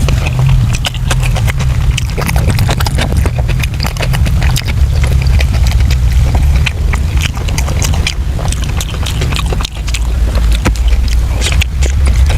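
Close-miked eating sounds: chewing and lip-smacking of soft braised pork intestines, a quick, irregular run of wet clicks, over a steady low rumble.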